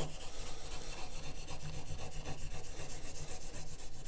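Abrasive rust-eraser block scrubbed quickly back and forth on a steel knife blade in many short, even strokes, rubbing off rust and discolouration.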